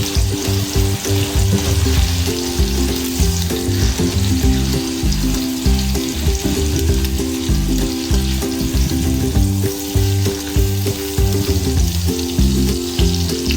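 Ribeye steak sizzling steadily in butter in a frying pan. Low steady notes that change every half second or so, like background music, sound underneath.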